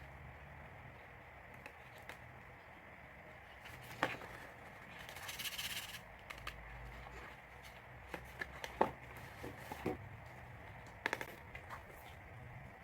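Packaging being handled: scattered clicks and taps, with a brief rustle about five seconds in, over a steady low room hum.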